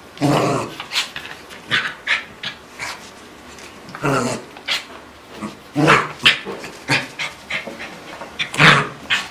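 West Highland white terrier in rough play, giving a string of short growls and panting huffs, about one a second.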